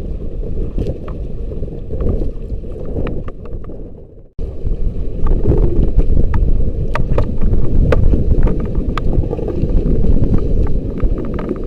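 Wind buffeting the microphone in a loud low rumble, with scattered light clicks and ticks. The sound dips and drops out for a moment just after four seconds in, then comes back.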